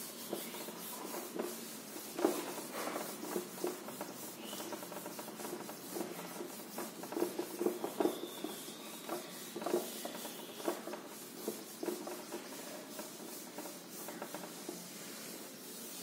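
Handheld whiteboard eraser rubbing back and forth across a whiteboard, wiping off marker writing in a run of irregular scrubbing strokes.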